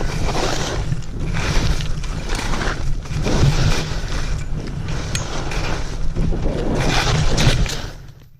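Wind rushing and buffeting on the camera microphone while skiing downhill, with the hiss and scrape of skis on snow swelling and fading through the turns. It fades out suddenly near the end.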